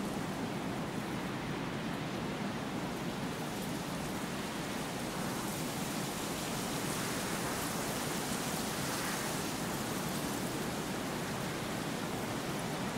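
Wind blowing through tall dry grass: a steady hiss that gets brighter for a few seconds around the middle.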